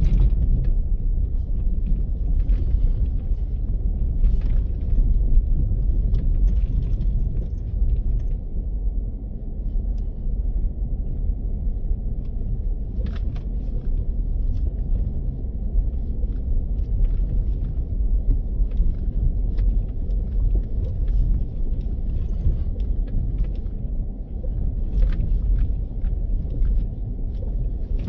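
Car driving slowly over a rough dirt road on stock tires: a steady low rumble with scattered knocks and rattles from the uneven surface.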